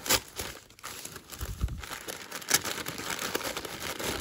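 Thin white packing paper being unfolded and crinkled by hand, an irregular run of rustles and crackles with sharper crackles just after the start and about two and a half seconds in.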